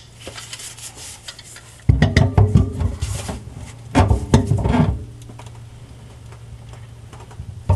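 Hands rubbing and scraping on the kitchen sink strainer basket and its fittings, with small clicks and knocks, in two bursts about two and four seconds in.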